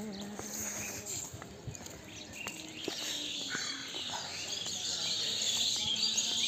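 Outdoor ambience of many small birds chirping, which grow denser and louder from about halfway through, over a faint steady low hum.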